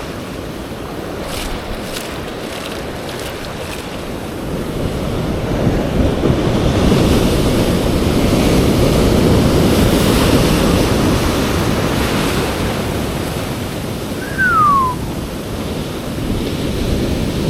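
Ocean swell surging and washing over a rock ledge, building to a loud rush through the middle and then easing off, with some wind on the microphone. A single short falling whistle is heard near the end.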